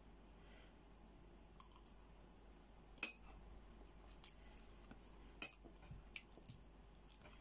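A few sharp clicks and clinks of cooked crab shell and a spoon against the dishes as the crab is picked apart by hand, the loudest about three and five and a half seconds in.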